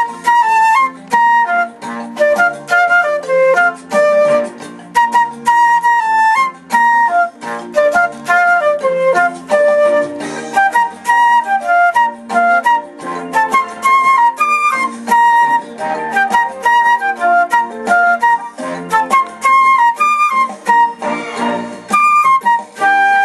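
Flute playing a flowing melody over a backing accompaniment of chords and a light beat.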